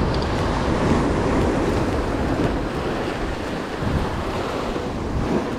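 Wind buffeting the microphone over the steady wash of sea surf.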